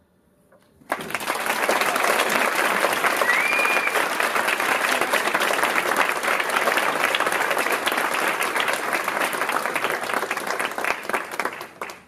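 Audience applauding, breaking out suddenly about a second in and dying away near the end, with a short rising whistle from the crowd about three seconds in.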